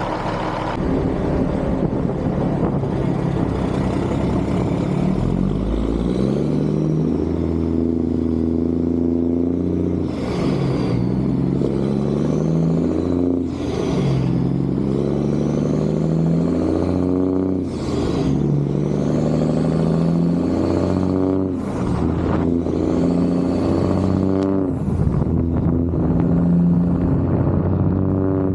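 Semi truck's diesel engine accelerating through the gears. The engine note climbs and drops sharply at each upshift, about four times, then holds steadier near the end.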